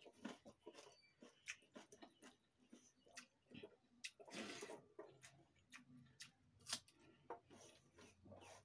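Faint, irregular clicks and smacks of someone eating rice by hand: chewing and mouth sounds, plus fingers mixing leftover rice in a steel plate, with a short louder rustling smack about four seconds in as a handful goes to the mouth.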